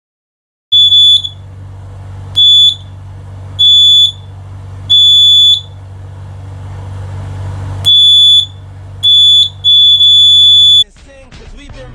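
Breadboard laser alarm's buzzer sounding seven high-pitched beeps of uneven length over a low steady hum. Each beep is the alarm tripping when the laser beam on the light-dependent resistor is broken.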